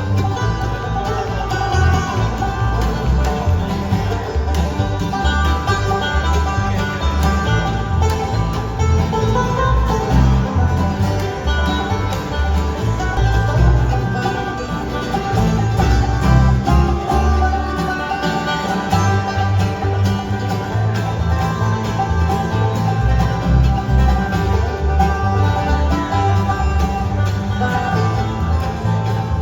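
Live band playing an instrumental bluegrass-style passage, with plucked strings over a steady pulsing bass.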